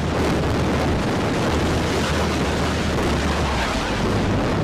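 Loud, steady jet engine noise from an F-35B's single F135 turbofan at high power as the jet rolls away down the deck on its short takeoff run.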